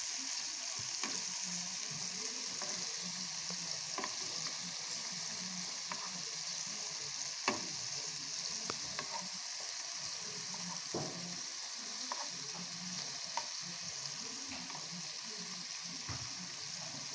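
Kefta (spiced ground-meat) patties frying in shallow oil in a pan, a steady sizzle. Scattered sharp clicks come as a spoon and spatula turn the patties, the loudest about seven and a half seconds in.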